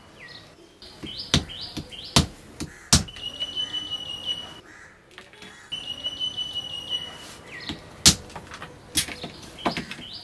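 A hammer breaking pieces of dried plaster: sharp knocks, three in the first few seconds and three more near the end. Between them a bird sings in the background, a long steady whistle followed by short chirps, repeated.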